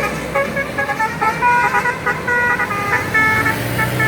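Basuri-type 'telolet' multi-tone bus horn playing a quick tune of short notes that change pitch. A low steady hum comes in near the end.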